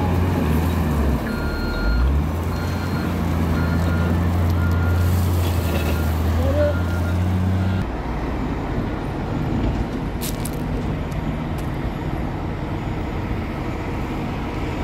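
Heavy diesel engine of a CAT 966H wheel loader working, with a reversing alarm beeping in short tones through the first half. About eight seconds in the steady engine note drops away, leaving rougher machinery noise.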